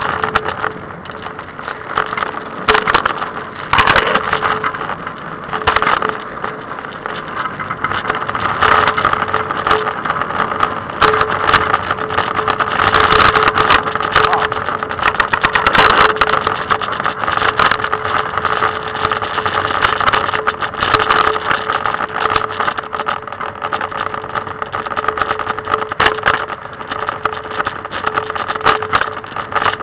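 Trikke three-wheeled scooter rolling fast over pavement: continuous rough wheel noise with a steady hum and frequent rattling clicks.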